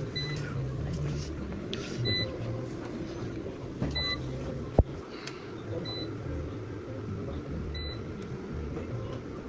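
UPS buzzer giving short high beeps about every two seconds over a steady low hum, with one sharp click about halfway through.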